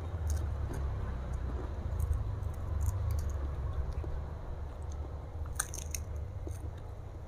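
A person chewing a mouthful of rice and fish close to a clip-on microphone, with a few short crunches near the start, about two seconds in and about five and a half seconds in.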